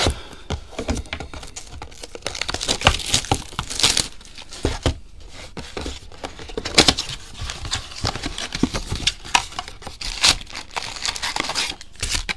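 A blaster box of Panini Hoops Premium Stock basketball cards being opened by hand: cardboard and pack wrappers crinkling and tearing, with irregular crackles throughout.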